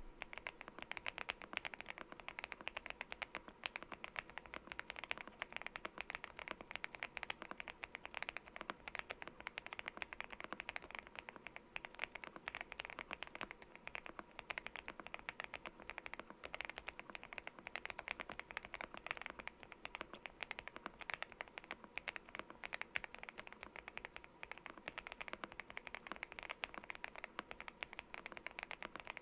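Continuous fast typing on a GMK81 mechanical keyboard with lubed Gateron CAP V2 Milky Yellow linear switches, dampened by a tape mod and case and plate foam. It is a steady stream of keystroke clacks with no pauses.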